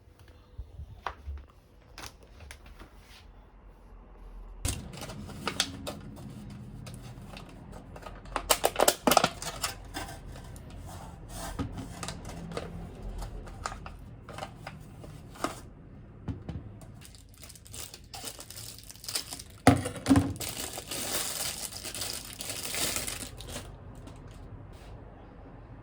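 Kitchen prep handling: plastic food packaging crinkling and tearing, with scattered clicks and knocks, over a steady low hum that starts about five seconds in. A dense rustling hiss comes a little past the middle.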